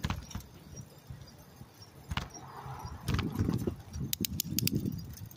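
Bicycle rattling and clinking as it rolls over the road, with a quick run of jangling metallic clicks about four seconds in, over a low rumble of wind and tyres.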